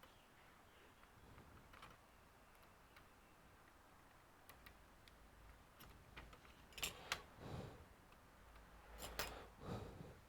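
Near silence, broken by a few faint clicks and brief handling noises, grouped about seven seconds in and again near the end.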